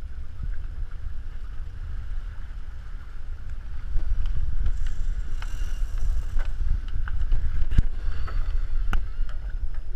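Wind buffeting the onboard camera's microphone as a low rumble, with water rushing along the racing catamaran's hulls; it grows louder about four seconds in, and a couple of sharp knocks from gear on deck come near the end.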